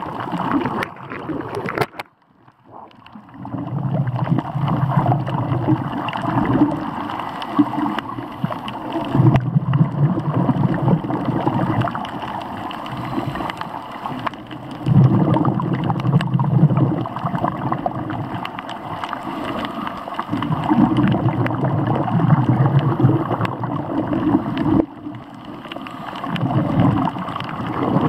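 Underwater water noise around a snorkeler's camera: gurgling and rushing water that swells every five or six seconds, with a brief dropout about two seconds in.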